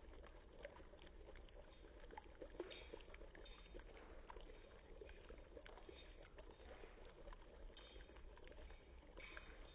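Faint bubbling of dry ice in a cup: many small irregular pops over a soft hiss.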